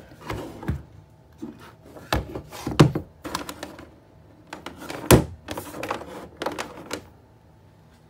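An irregular run of knocks, clicks and thunks from cupboard doors and latches being handled inside a travel trailer, the two loudest thunks about three and five seconds in, then quieter near the end.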